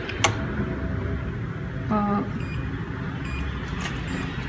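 A few short electronic beeps: a lower one about two seconds in, then two higher ones soon after, over a steady low hum.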